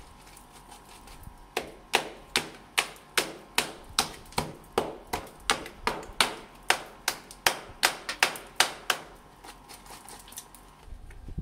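A claw hammer strikes a steel chisel to chip out a hole in a plastered wall. About twenty steady, ringing blows start about a second and a half in, about two and a half a second, and stop near the end, with lighter scraping and taps around them.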